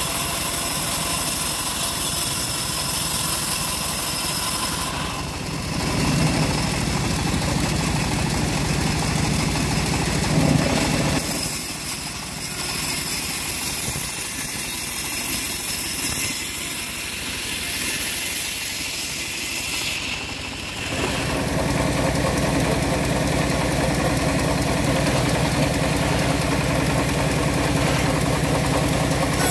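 Engine driving a homemade band sawmill, running steadily under continuous machine noise. Its sound changes a few times along the way.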